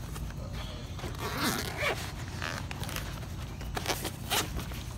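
Handling noise in a metal tool chest drawer: a short rasping slide about a second and a half in, then a few sharp metallic clicks of tools knocking together near the end.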